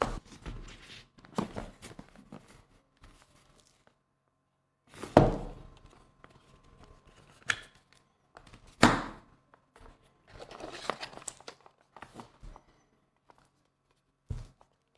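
Close handling noise: irregular rustling and crinkling with a few dull knocks, two louder ones about five and nine seconds in and a short low thump near the end.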